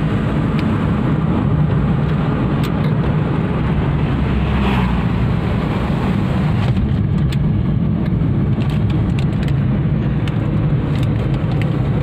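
Steady road and engine noise of a moving car heard from inside the cabin: a continuous low rumble with tyre hiss, the hiss fading about seven seconds in.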